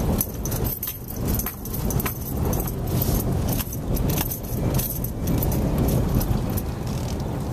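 Car driving over a cobblestone street, heard from inside the cabin: a low rumble from the tyres on the stones with a constant rattling and jingling over the bumps.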